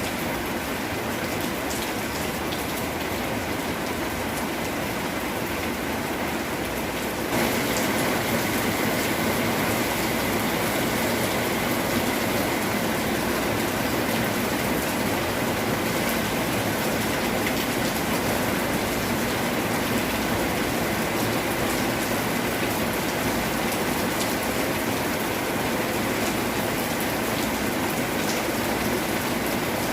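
Steady rain falling and pattering on surfaces, a continuous hiss of drops. About seven seconds in it jumps abruptly louder and brighter, then carries on steadily.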